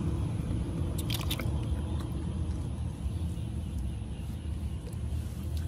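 Hands scooping and cupping water in a shallow, grassy puddle, with a few small wet splashes and ticks about a second in, over a steady low rumble.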